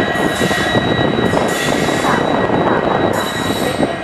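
A pair of EMD diesel locomotives, a WDG4 and a WDP4 with 16-cylinder two-stroke EMD 710 engines, running light past at close range: a dense diesel engine rumble with a steady high-pitched whine over it.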